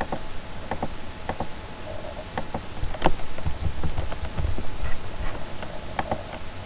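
Computer keyboard keys and mouse buttons clicking in an irregular string of sharp taps as a program name is typed into a search box, with a few dull low thumps in the middle, over a faint steady hum.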